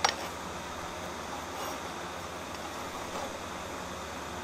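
A sharp clink of steel tongs and a hot bar set down on the fly press's bolster plate, then a steady rushing background with a couple of faint knocks as the press punches the hot bar.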